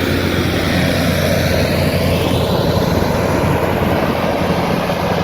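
Ford TW25 tractor's six-cylinder turbo diesel running steadily at working revs, pulling a four-furrow reversible plough.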